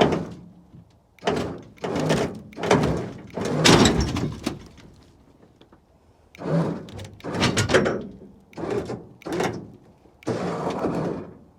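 Repeated bursts of metal clanking and scraping, about nine in a row with short pauses, as the scrapped 1978 Ford dually's rear deck is winched onto a trailer and shifts against it.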